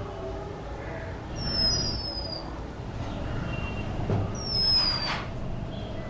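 Oriental magpie robin giving thin, high whistles that fall in pitch: a doubled one about a second and a half in and another a little past the middle. A low, steady background rumble runs beneath.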